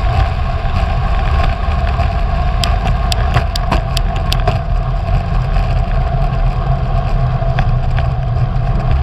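Wind buffeting the microphone of a GoPro on a road bike descending at speed: a steady, loud rushing roar mixed with rolling road noise. A few sharp clicks come through between about three and four and a half seconds in.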